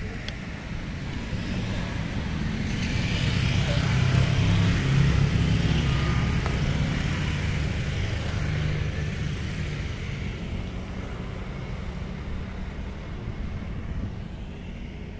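A motor vehicle passing by: a rumbling engine and tyre noise that swells over a few seconds, peaks about five seconds in, then slowly fades away.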